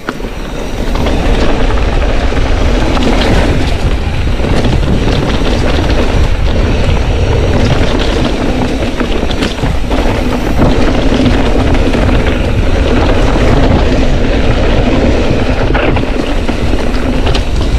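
Wind buffeting the microphone of a mountain bike descending a rocky trail at speed, with the bike and tyres clattering over stones. It gets louder about a second in and then stays loud.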